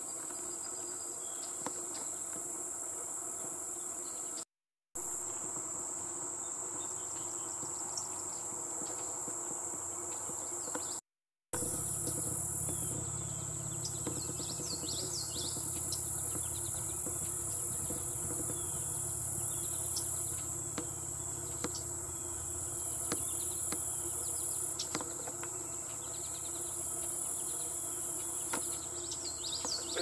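Steady high-pitched insect chorus of crickets, running without a break, with a few short chirping calls mixed in about halfway through and near the end. The sound drops out completely twice for under a second.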